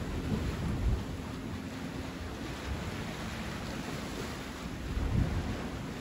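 Seaside ambience: waves washing on the shore under a steady hiss, with wind buffeting the microphone in low rumbling gusts that are strongest about a second in and again about five seconds in.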